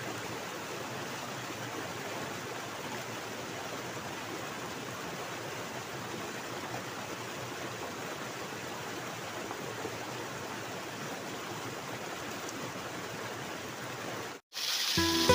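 Steady rush of stream water running without a break; it cuts out briefly near the end and music begins.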